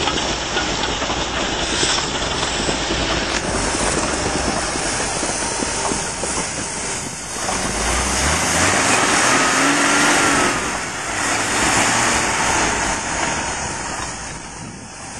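Nodwell tracked carrier driving under its own power in a low gear, engine running loud and steady. About halfway through, the engine revs climb and it gets louder.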